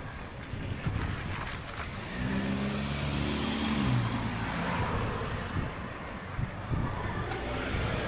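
A car driving past close by, its engine note holding steady and then dropping in pitch about four seconds in, with tyre noise swelling after it.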